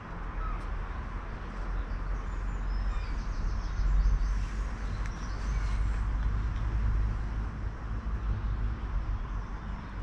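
Outdoor ambience: a deep, low rumble that swells about four seconds in and again a little later, over a steady background hiss, with a few faint bird chirps.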